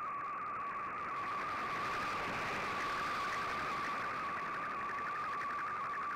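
MFSK digital picture transmission heard through a shortwave receiver: a steady tone near 1 kHz with a fine flutter, over shortwave static hiss that is cut off above about 3 kHz by the receiver's passband.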